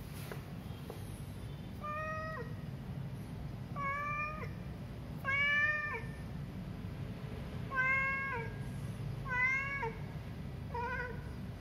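Stray cat meowing repeatedly: six meows spaced about one and a half to two seconds apart, each falling in pitch at the end, over a steady low hum.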